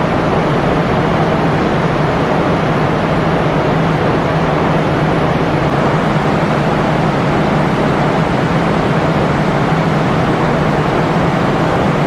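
Steady, loud mechanical roar with a low hum underneath, unchanging throughout.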